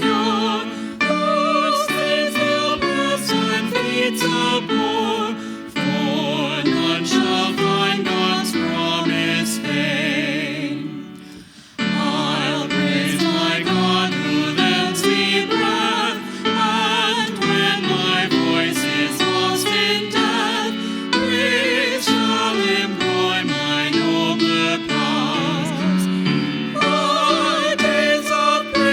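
Church music: singing voices with vibrato over instrumental accompaniment. The music dips briefly about eleven seconds in, then comes back sharply.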